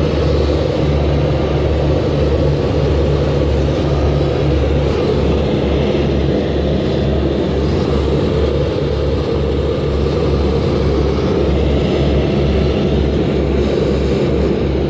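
Steady cabin noise of a private jet in flight: an even, loud rush of air over a continuous low engine drone.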